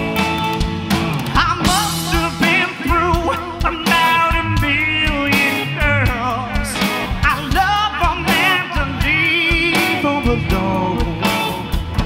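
Live rock band playing: distorted electric guitar from a Les Paul-style guitar through Marshall amplifiers, with drums. A man's lead vocal comes in about a second and a half in.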